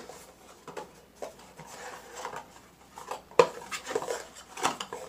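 A GoPro Hero 7 Black's box and packaging being handled while unboxing: a run of light clicks, knocks and rustles, with a sharper knock about three and a half seconds in.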